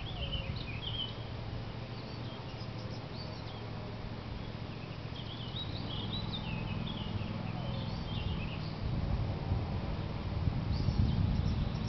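Songbirds chirping in short, scattered phrases over a low steady rumble that grows louder in the last few seconds.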